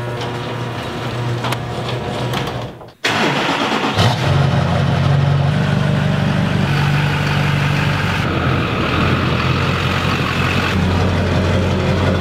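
Duramax 6.6-litre turbodiesel V8 of a 2003 GMC 2500HD running at a steady idle. After a brief break about three seconds in, it comes back louder and keeps running steadily.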